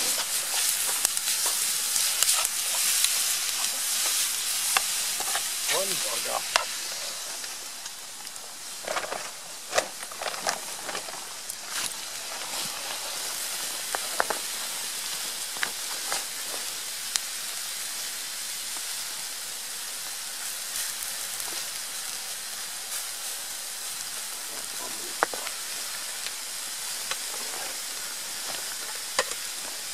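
Sliced peppers and red onion sizzling in a frying pan set on a campfire's hot coals. The sizzle is louder for the first several seconds, then settles to a steadier, quieter hiss. Scattered sharp clicks and crackles come through, most of them a third of the way in and a couple near the end.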